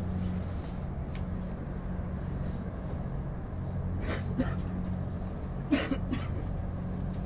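Steady low machine hum, with a few brief rustles and snaps about four and six seconds in as tomato vines are handled.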